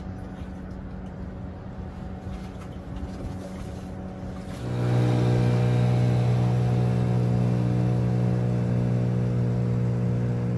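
Outboard motor of a small jon boat running at a steady throttle, faint at first, then suddenly much louder and close about halfway in as the boat passes, its pitch holding steady.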